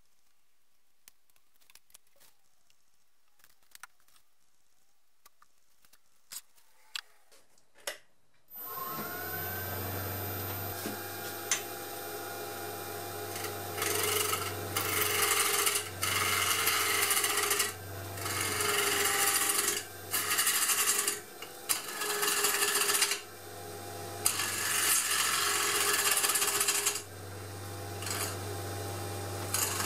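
A few faint clicks, then a wood lathe starts about a third of the way in and runs with a steady hum. From about halfway, a gouge cuts into the inside of a spinning segmented pear-wood vase in repeated strokes of a second or two, each a loud scraping rush of wood being cut, with short pauses between.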